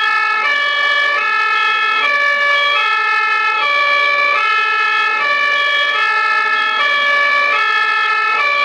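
German ambulance two-tone siren (Martinshorn) sounding continuously, switching steadily between a high and a low tone, each held for about half a second.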